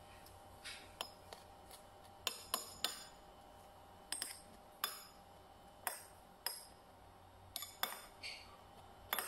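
Metal spoon clinking and scraping against a ceramic plate while scooping rice: a dozen or more short, sharp clinks at irregular intervals.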